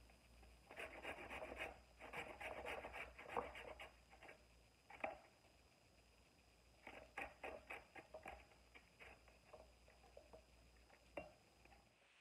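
A carrot being rubbed down a stainless steel flat grater: faint, quick runs of short scraping strokes, in two main bursts with a few single strokes between.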